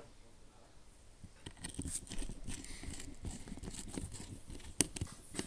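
Small plastic parts and screws being handled and worked with a screwdriver: a run of light clicks, scrapes and rattles starting about a second and a half in, with one sharp click near the end.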